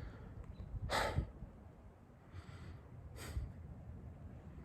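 A man sighing and breathing out hard in frustration, two sharp exhales about a second in and again about three seconds in.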